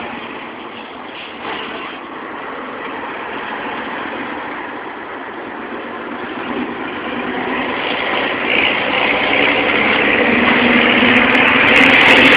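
Scania 113H truck's 11-litre straight-six diesel running through a straight, muffler-less exhaust, getting steadily louder through the second half.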